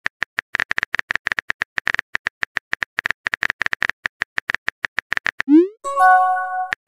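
Phone-keyboard typing sound effect: a rapid, irregular run of short clicks. About five and a half seconds in it gives way to a quick rising pop and a short chime, a message-sent notification sound, before the clicks start again.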